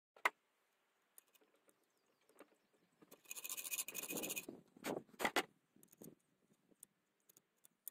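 Hacksaw cutting a notch into a zinc-plated steel draw bolt held in a bench vise: a raspy stretch of sawing about a second long a little past the middle. This is surrounded by sharp clicks and knocks of metal parts being handled, the loudest a single sharp click just after the start.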